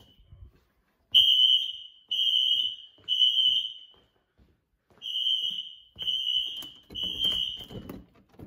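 Building fire alarm sounding a high, single-pitched tone in groups of three long beeps separated by a pause of about a second, the temporal-three evacuation pattern. The alarm was set off by a faulty pull station.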